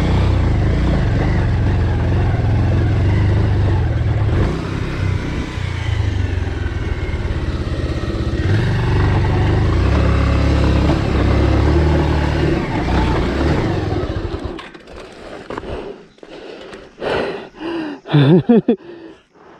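Motorcycle running steadily while being ridden, a dense low rumble that stops abruptly about fourteen seconds in, followed by a few short, scattered sounds near the end.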